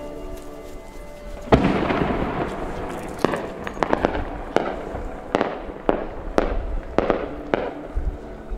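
Aerial firework shells going off: one heavy bang about a second and a half in, then a string of sharper bangs roughly every half second, each dying away in a rolling echo.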